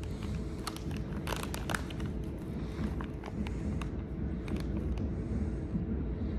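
Rustling and light clicks and taps of a sock or shoe being handled and pulled onto a foot close to the microphone, over a low steady rumble.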